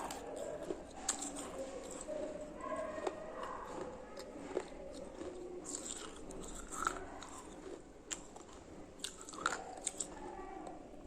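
Close-up crunchy chewing of a hard food, with sharp crunches scattered through it, the sharpest just before a second in, about seven seconds in and twice around nine to ten seconds in, over a steady wet mouth noise.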